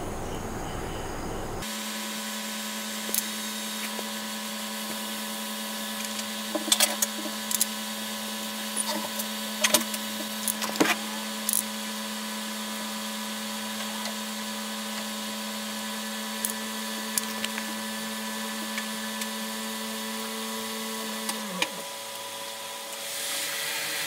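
Nail clipper snipping at a plastic connector housing between metal pins: sharp clicks in small clusters, the most of them about 7 to 11 seconds in. Under them runs a steady electrical hum that stops about 21 seconds in, its pitch sagging as the mains power cuts out.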